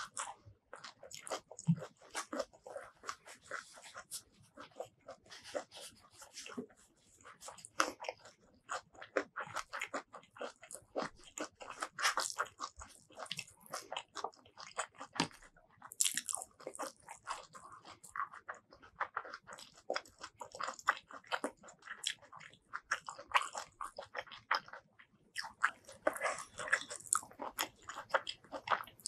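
Close-miked eating sounds: a person chewing and biting handfuls of rice mixed with spicy tomato fish paste curry and boiled vegetables, with a rapid, irregular run of wet, crunchy mouth clicks.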